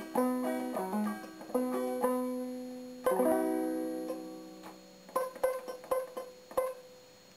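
Instrumental music on plucked strings, single notes and chords ringing and decaying, fading out toward the end.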